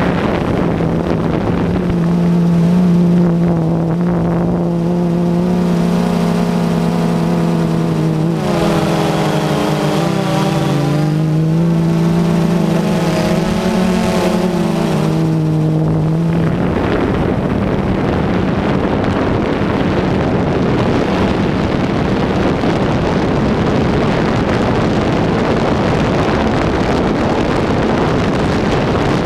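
Camera drone's motors and propellers humming, their pitch wavering up and down as the drone manoeuvres, over wind rushing across the microphone. About halfway through, the motor tone sinks into the steady wind noise.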